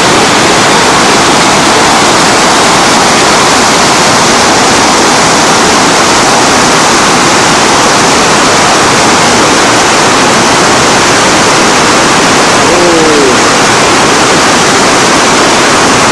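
Whitewater rapids rushing, a loud steady roar of churning water.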